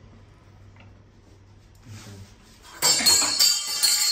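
Metal-and-glass clinking and rattling from the door of a Usha countertop electric oven (OTG) as it is handled. It starts about three seconds in over a faint low hum and lasts nearly two seconds.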